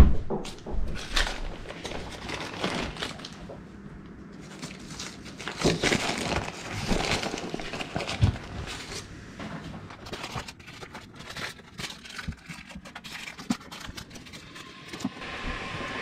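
Kitchen food-preparation handling sounds: crinkling and rustling, with scattered small knocks and clicks. A steady hiss comes in near the end.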